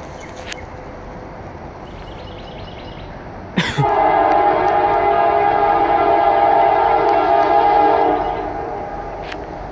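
Freight locomotive air horn sounding one long steady blast of about four seconds, beginning about a third of the way in right after a sharp knock, then fading. Under it runs the steady rumble of the passing freight train.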